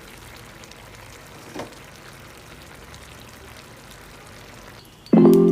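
Steady rush of running water, then music with chime-like tones starts loudly near the end.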